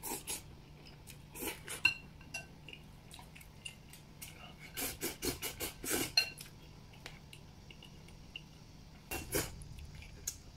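Wooden chopsticks tapping and scraping against a porcelain noodle bowl as noodles are shovelled from it, in three short clusters of clicks with a few bright ringing clinks.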